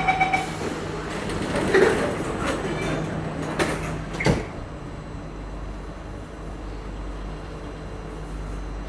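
Singapore MRT train doors closing: the door warning chime's rapid beeps end just after the start, the sliding doors shut with a few knocks about two to four and a half seconds in, then the train's steady low hum.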